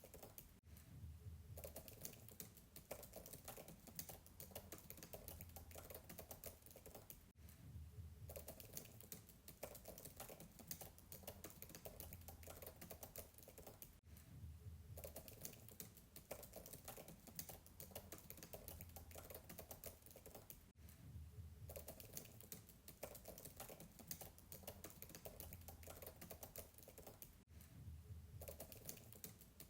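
Fast typing on a MacBook keyboard: a faint, quick run of soft keystroke clicks, heard from a distance, with a brief break about every seven seconds.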